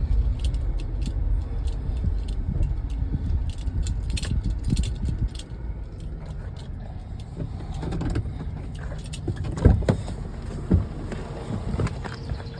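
Scrap metal being picked up and handled: scattered rattling and clinking, with a couple of sharp knocks about ten seconds in, over a steady low rumble.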